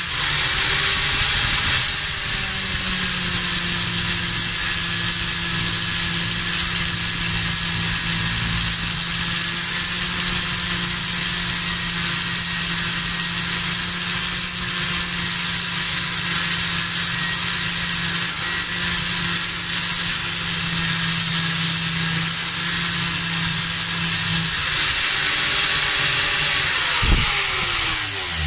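Ryobi angle grinder with a 40-grit flap sanding disc grinding the steel face of an axe head: a steady loud whine and rasp. Near the end it is lifted off the work and its pitch falls as it runs down.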